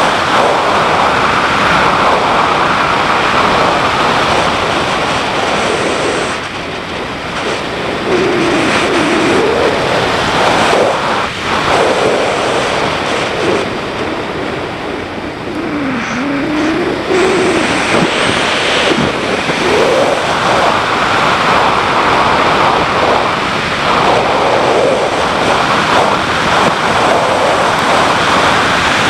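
BMW G650GS single-cylinder motorcycle engine running under way, its revs dropping and climbing several times with throttle and gear changes, under heavy wind noise on the microphone.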